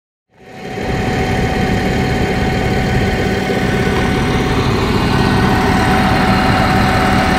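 An engine or motor running steadily, fading in within the first half second and holding an even, unchanging hum.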